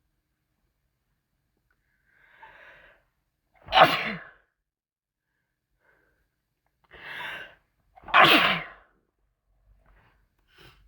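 A person sneezing twice, about four seconds apart. Each loud sneeze is preceded by a quieter build-up about a second earlier.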